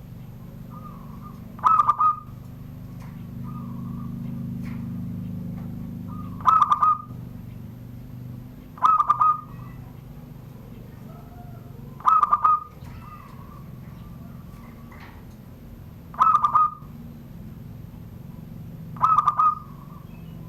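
Zebra dove (perkutut) singing its 'surung gdor' song: six short, loud phrases of quick staccato coos a few seconds apart, with softer coos between them. A steady low hum runs underneath, louder about a quarter of the way in.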